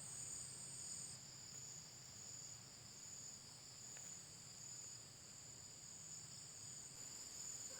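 Steady, high-pitched chorus of insects trilling without pause in the background.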